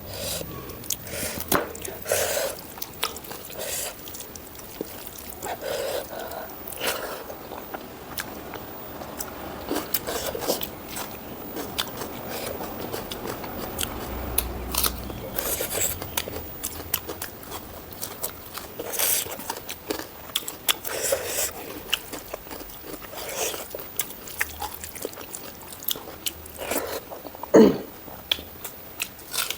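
Close-miked eating: a person chewing and biting, with irregular crunchy bites and wet mouth sounds, and one louder sharp bite a little before the end.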